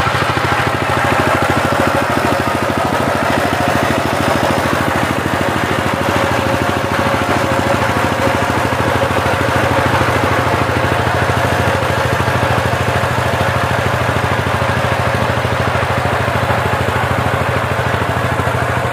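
Single-cylinder diesel engine of a two-wheel power tiller running steadily with a fast, even clatter as the tiller works across ploughed soil.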